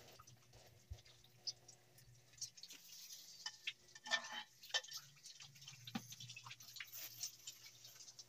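Faint splashes and drips of hose water on a tiled floor, with scattered light taps and clicks; the largest splash comes about four seconds in.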